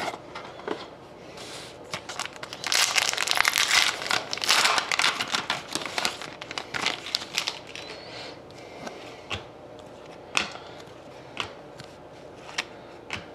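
Foil wrapper of a trading card pack crinkling and tearing as it is peeled open, loudest from a couple of seconds in to about halfway, followed by scattered light clicks and rustles of the cards being handled.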